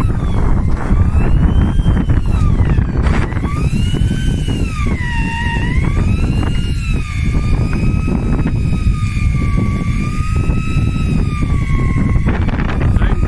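Electric fishing reel motor whining as it winds line in against a fish on a hard-bent rod. Its pitch dips and recovers with the strain on the line, and it stops about twelve seconds in. Wind on the microphone and sea noise run underneath.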